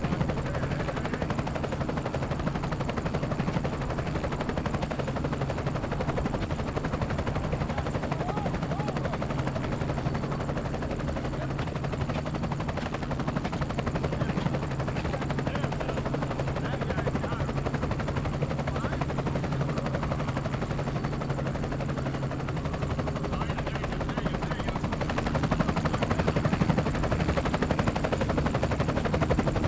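Helicopter in flight: steady rotor chop and engine noise with no breaks.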